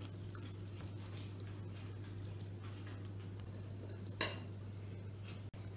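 Faint kitchen handling sounds: light clinks and scrapes of utensils and dishes, with a sharper click about four seconds in, over a steady low hum.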